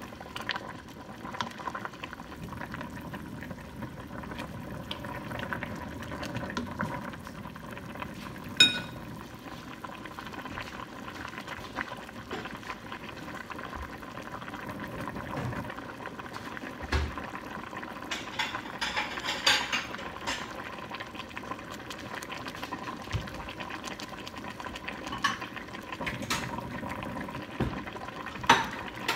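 A stockpot of bak kut teh herbal soup bubbling steadily on the stove, with scattered clinks and knocks: one sharp ringing clink about a third of the way in and a flurry of clicks about two-thirds in.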